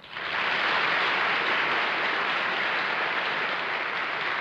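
Studio audience applauding, coming up sharply at the start and holding steady.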